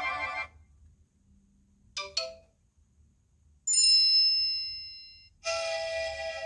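iPhone 11 Pro ringtones and alert tones previewed one after another, each cut short: a tone that stops about half a second in, a quick few-note figure around two seconds, a bell-like chime near four seconds that dies away over about a second and a half, and another tone starting near the end.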